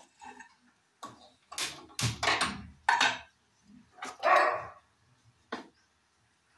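A dog barking, several short barks in a row over a few seconds.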